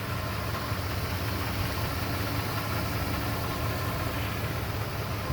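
Vehicle engine idling steadily, an even low hum.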